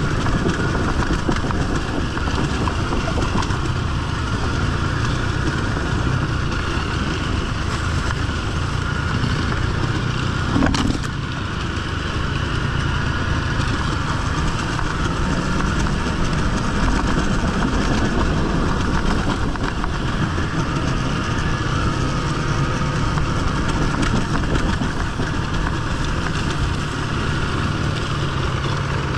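Enduro dirt bike's engine running steadily as it is ridden, with a short knock and a brief drop in level about eleven seconds in.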